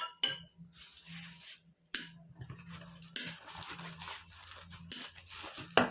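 Scattered light clicks, knocks and scrapes of utensils and handling at a meal table, with a sharper knock near the end, over a steady low hum.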